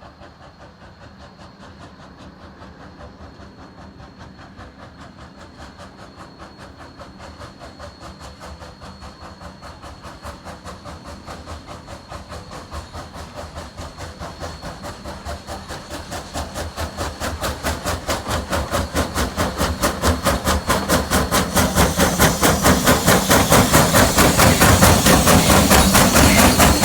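Sierra Railway #3, a 4-6-0 steam locomotive, working steadily as it approaches, its exhaust chuffing in an even rhythm. The chuffs grow steadily louder throughout as it draws near.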